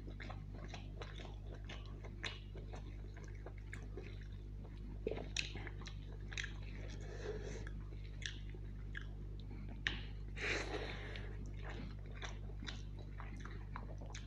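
A man biting and chewing chicken curry off a drumstick bone, close to the microphone. Scattered sharp clicks and mouth noises run throughout, with louder bites about five and ten seconds in, over a steady low hum.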